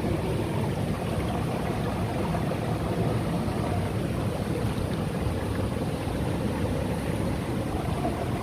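Rushing water of a river running through a gorge, a steady, even noise with most of its weight in the low end.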